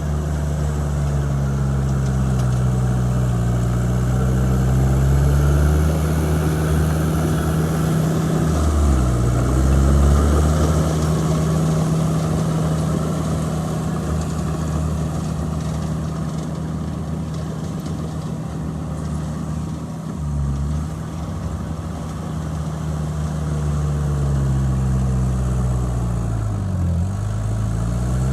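Bulldozer's heavy diesel engine running steadily, its revs dipping and picking back up three times.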